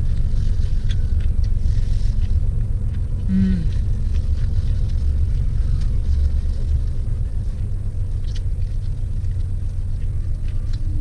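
Steady low rumble of a car engine idling, heard from inside the cabin. A few light clicks and rustles from handling a paper food box are heard over it.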